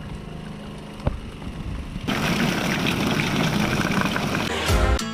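A boat's engine running steadily, with one sharp knock about a second in. About two seconds in, this gives way abruptly to a loud rush of water and a mass of mackerel sliding and splashing down a chute, ending in a heavy thump.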